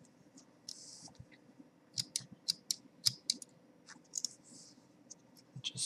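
Leatherman Juice S2 multitool clicking as it is worked in the hand: a run of sharp metal clicks starting about two seconds in, with a few more later and soft rustles of handling between them.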